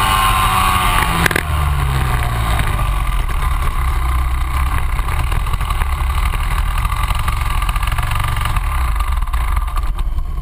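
Rotax Max 125 two-stroke kart engine heard on board, its revs falling over the first second and a half, then running at low revs.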